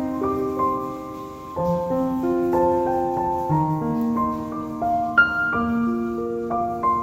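Background music: a calm piano melody of held, overlapping notes, with one brighter, louder note about five seconds in.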